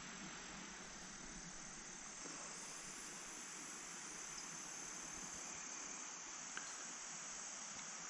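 Crickets trilling steadily in a high, unbroken chorus, faint under the open-air hiss.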